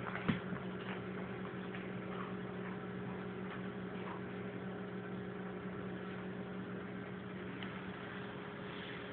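Steady electrical hum, with a single light tap shortly after the start and a few faint scuffs.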